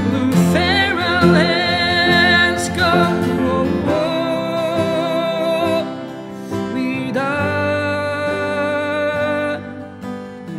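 Music: an acoustic guitar song with three long, held, wavering melody notes sung over it, without words.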